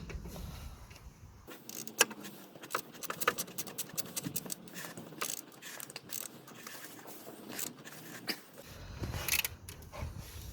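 Metal hand tool tightening a 10 mm bolt: irregular metallic clicks and short scrapes, on and off for several seconds.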